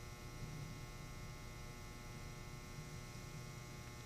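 Faint steady electrical hum: room tone with no other sound.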